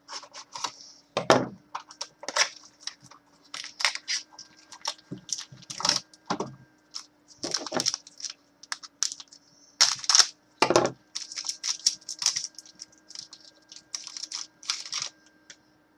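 Hockey card boxes and packs being opened and the cards handled: an irregular run of crackling, clicking and rustling of cardboard, foil wrappers and card stock, with a few louder cracks.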